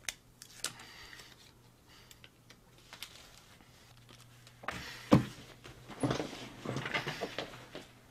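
Handling noises of a person moving at a desk: a few light clicks, a loud thump about five seconds in, then a run of short knocks and rustling. A faint steady hum lies underneath.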